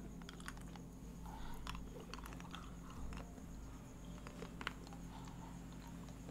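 Faint mouth sounds of people holding ice cubes in their mouths: scattered small clicks of ice against teeth and soft sucking, over a low steady hum.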